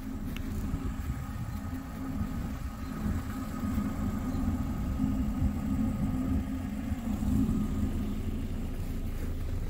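Steady low engine rumble, like a motor vehicle idling.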